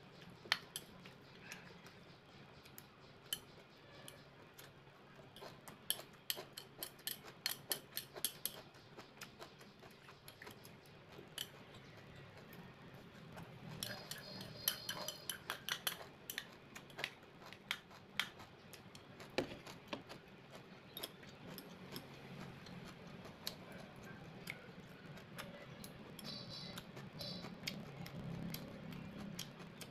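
Close-up eating sounds: metal chopsticks clicking and tapping against ceramic bowls, with chewing and mouth clicks in between. About halfway through comes a quick run of clicks and slurps as broth is sipped from a small bowl.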